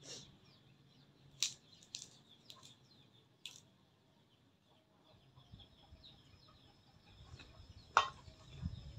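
Quiet eating sounds: a few sharp clicks of chopsticks against stainless steel bowls, the loudest near the end, with soft chewing in the last couple of seconds.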